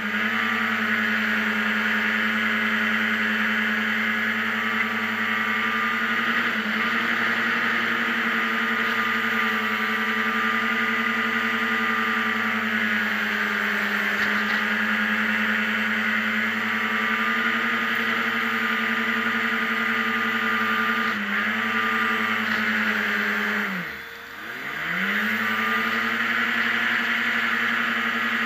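F50 racing hovercraft's engine and thrust fan running hard at a steady high pitch. About 24 seconds in, the revs drop sharply and climb straight back up.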